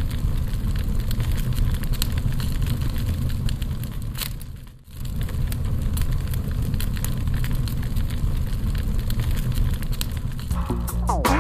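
Roaring, crackling fire sound effect with a deep rumble, which dips briefly about five seconds in. Music starts near the end.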